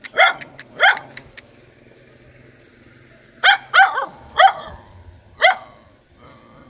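A dog barking: two sharp barks in the first second, then a run of four more a few seconds later, each bark short and falling in pitch.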